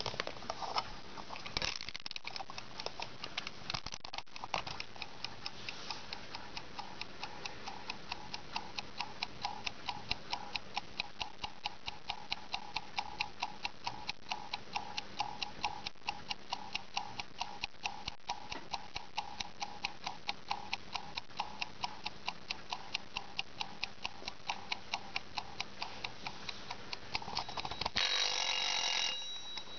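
IKEA mechanical kitchen timer: the knob is turned with a few clicks, then the clockwork ticks rapidly and evenly. Near the end, as the knob is turned by hand, a short ring sounds before the ticking goes on.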